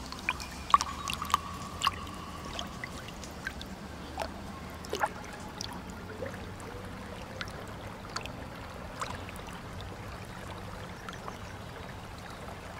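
Water trickling steadily, with scattered sharp drips.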